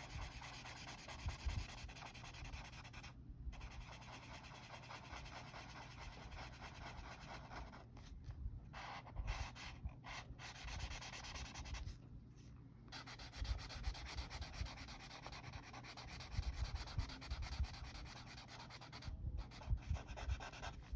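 A pen scribbling back and forth on paper, coloring in a shape, with light knocks of the hand and pen against the paper and table.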